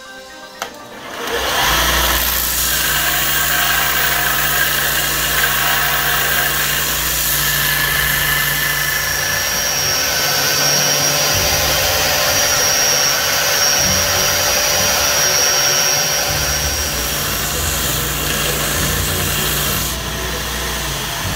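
A belt grinder starts up about a second and a half in and runs steadily as a small steel plate is ground against the moving belt. A high steady whine rises over the machine noise through the middle of the run.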